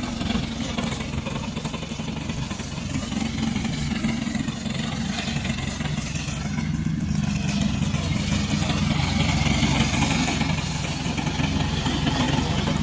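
Engine of a remote-controlled slope mower (brush cutter) running steadily.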